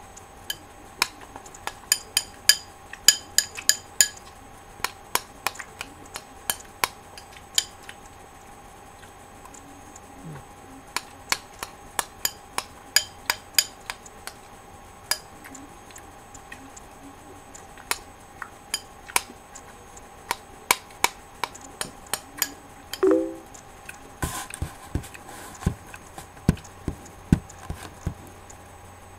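Dishes being handled: sharp clinks and clicks of a spoon against a bowl come in irregular runs, over a faint steady hum.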